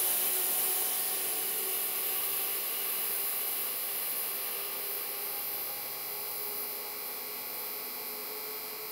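Departing bi-level commuter train pushed by an ALP-46A electric locomotive at its rear: a steady hiss and a faint whine, slowly fading as the train pulls away.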